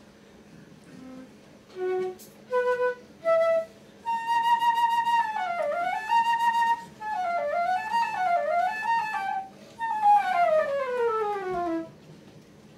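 Solo flute playing unaccompanied: a few short separate notes, then quick wavering runs, and about ten seconds in a long glide falling down the scale.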